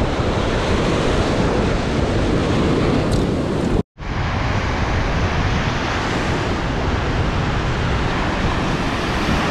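Ocean surf breaking and washing up the beach, with wind buffeting the microphone and making a steady, loud rushing. The sound cuts out abruptly for a split second about four seconds in, then the surf and wind carry on.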